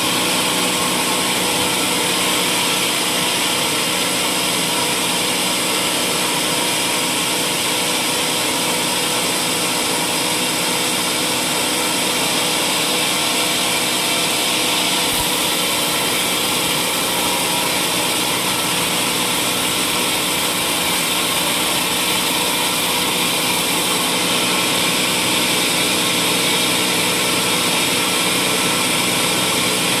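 Sawmill band saw ripping lengthwise through a waru log, with no break: a steady hiss of the cut over the even running tones of the saw's motor and wheels.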